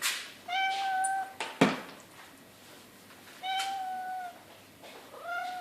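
Jack Russell cross puppies whining: three long, steady-pitched cries, the last starting near the end. A sharp knock comes about a second and a half in.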